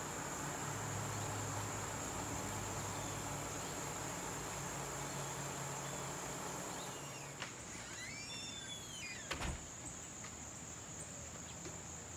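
Evening insect chorus of crickets: a steady high-pitched trill throughout. A low hum underneath fades out about seven seconds in, a few short arching chirps follow around eight seconds, and a single sharp knock comes just after nine seconds.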